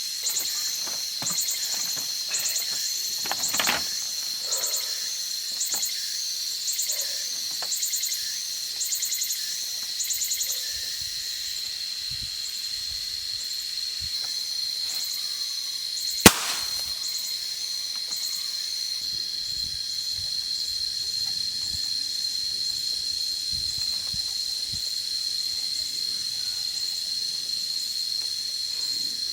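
Insects droning steadily at a high pitch, with pulsing chirps repeating about once a second for the first ten seconds or so. A single sharp click or snap cuts through about sixteen seconds in.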